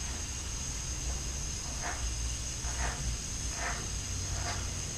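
Aerosol can of Bel-Ray chain lubricant hissing as it sprays a motorcycle drive chain while the rear wheel is turned by hand, with faint ticks about once a second.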